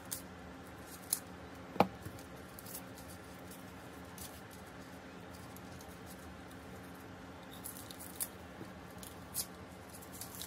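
Scissors snipping through packing tape and wrapping: a few scattered sharp snips and clicks, the loudest about two seconds in, over a faint steady low hum.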